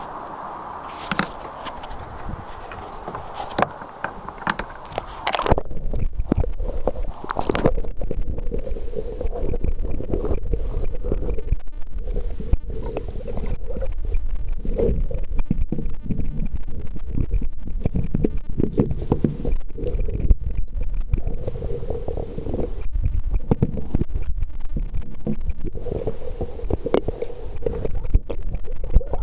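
Muffled underwater noise picked up by an underwater fishing camera: a low rumbling wash with frequent small clicks and knocks, which gets louder about five seconds in.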